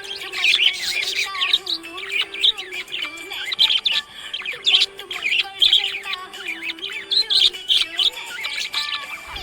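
Budgerigar chirping and warbling in rapid, busy chirps, over background music with a held low note that steps up and down.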